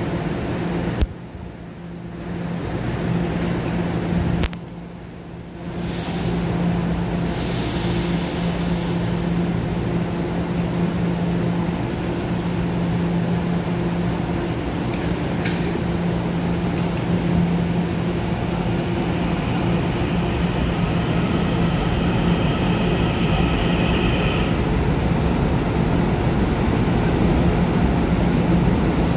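Taiwan Railway EMU900 electric multiple unit standing at an underground platform with a steady electrical hum. A steady high tone sounds for about five seconds, two-thirds of the way through, and near the end the train starts to pull away and the sound grows slightly louder.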